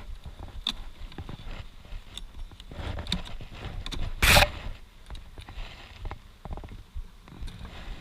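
Wooden Langstroth hive boxes and frames being handled: scattered knocks and clicks, with one loud brief rush of noise about four seconds in.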